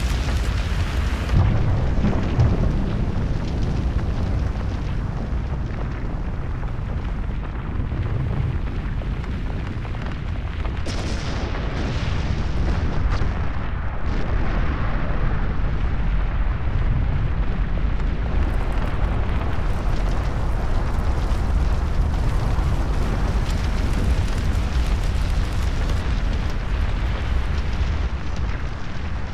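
Cumbre Vieja volcano erupting as lava fountains from its vent: a steady, deep rumble with dense crackling.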